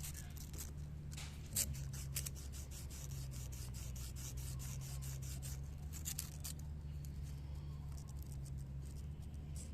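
Hand sanding of a wiper motor part with fine-grit sandpaper: short, irregular scraping strokes over a steady low hum.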